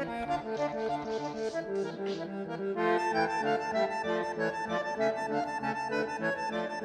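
Background music led by accordion, with a steady rhythmic pattern of held notes that grows fuller about three seconds in.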